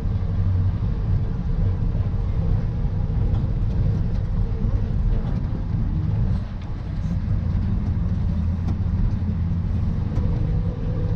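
Ford F600 dump truck driving, its engine and road noise a steady low rumble, easing off briefly about halfway through.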